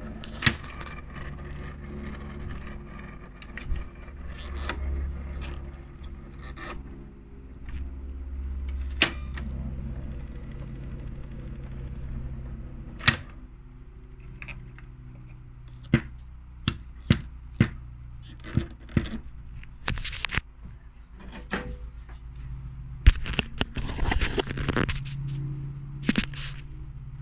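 Reel-to-reel tape recorder running with a steady low motor hum that swells at times, while its piano-key buttons and knobs are worked: many sharp clicks and clunks, most of them bunched together in the last third.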